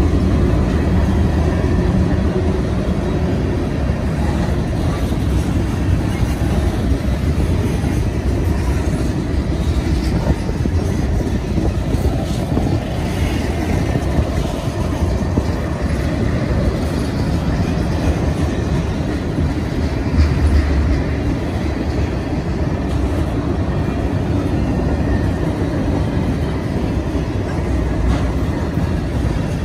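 Tank cars of a manifest freight train rolling past close by: a steady rumble of wheels on rail, with a few faint clicks and clanks.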